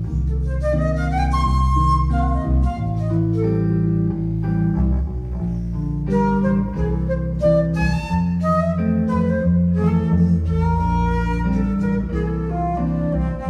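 Recorded music played through a valve amplifier and speakers: an instrumental passage with a flute melody over guitar and a deep bass line.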